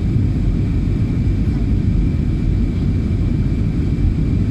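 Steady low rumble of engine and airflow noise heard from inside an Airbus A320's cabin as it descends to land, with a faint steady high whine over it.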